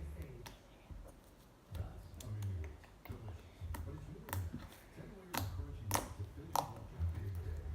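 Glitter slime being squeezed and poked by hand, giving a string of sharp little clicks and pops over soft handling noise.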